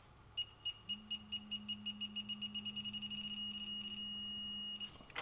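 Digital torque wrench beeping as the axle nut is tightened: high-pitched beeps that come faster and faster as the set torque nears, turning into one continuous tone for about the last second, when the target is reached. A low steady hum runs underneath from about a second in.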